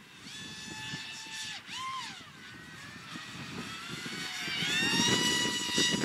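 Electric ducted fans of an FV-31 Cypher VTOL RC jet whining in flight. The pitch falls and rises with the throttle, with a quick rise and fall about two seconds in, then climbs and gets louder from about two thirds of the way through.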